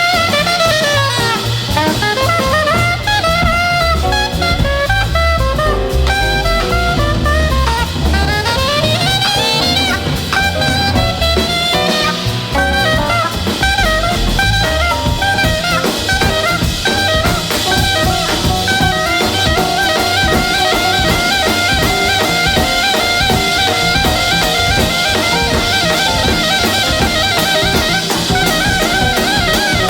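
Background music: jazz with a horn melody over a drum kit.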